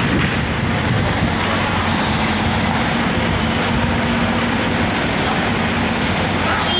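Engine of a heavy demolition machine running steadily: a loud, even noise with a low hum.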